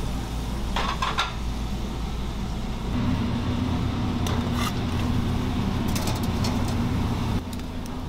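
Steady low hum of commercial kitchen equipment, with a few light clinks and scrapes of metal tongs against containers and a metal tray as food is lifted. The hum changes character about three seconds in and drops near the end.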